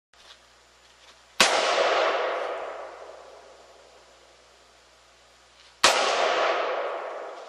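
Two single shots from a Colt Match Target M4A3 rifle, about four seconds apart, each followed by a long echo that fades over about two seconds.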